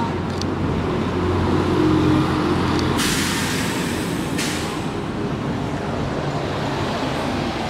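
Street traffic with a heavy vehicle's engine running low and steady, and about three seconds in a sharp hiss of air lasting about a second and a half, like air brakes releasing.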